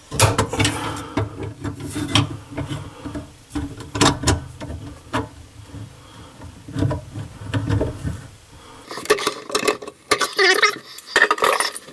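Wrench working on the metal fittings of a bathroom sink drain: irregular knocks, clicks and scrapes with dull handling bumps, turning to a lighter metallic clinking in the last few seconds.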